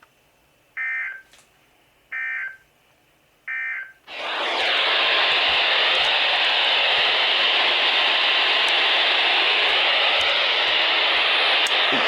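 Three short bursts of warbling EAS/SAME digital data tones, the end-of-message code that closes a weather radio alert. About four seconds in, loud, steady radio static hiss starts and holds as the broadcast carrier drops off.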